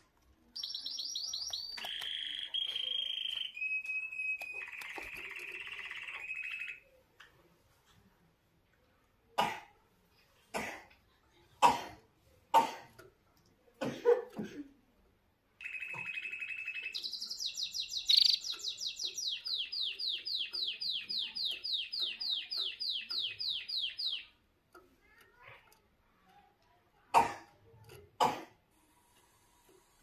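White domestic canary singing in two long phrases of high warbles and rapid trills, the second ending in a fast, even trill lasting several seconds. Several sharp taps come between the phrases and again near the end.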